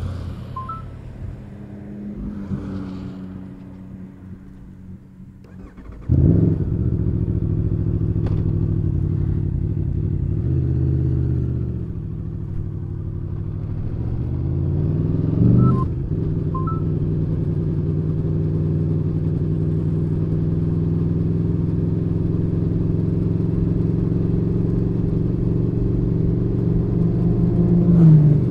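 2019 Aprilia Tuono V4 1100 Factory's V4 engine, stock exhaust, idling quietly, then pulling away hard about six seconds in. The revs climb and fall through the gears, with a sharp break at an upshift about halfway through and another near the end.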